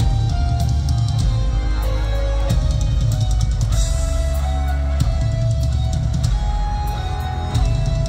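Live rock band playing an instrumental passage through the PA, with heavy drum kit, bass drum and cymbal hits under held notes, and no singing.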